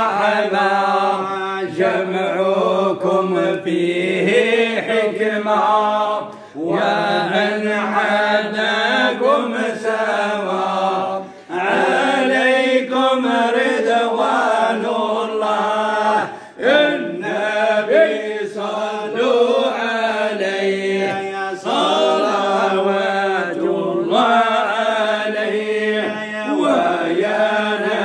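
Male voices chanting Islamic devotional praise of the Prophet (madih) in long drawn-out phrases over a steady held low note, breaking off briefly three times.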